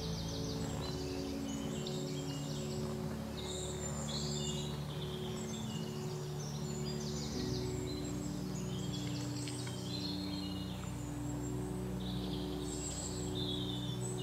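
Soft ambient background music of slow, held chords that shift to a new chord about seven seconds in, with birds chirping and trilling over it.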